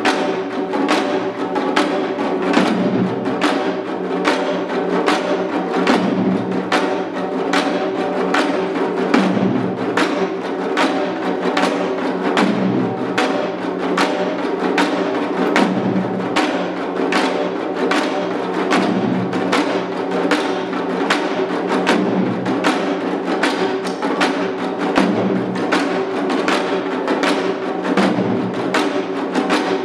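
Korean janggu hourglass drums played in seated seoljanggu style: a fast, steady rhythm of sharp stick strikes, with deeper booming strokes recurring every second or two.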